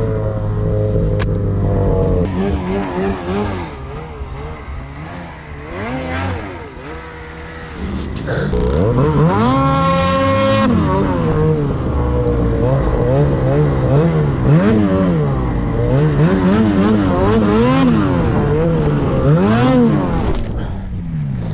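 Snowmobile engine revving up and down repeatedly as the sled ploughs through deep powder, with a sustained high-rev run about eight to ten seconds in and quicker rises and falls after it. The revs fall away near the end.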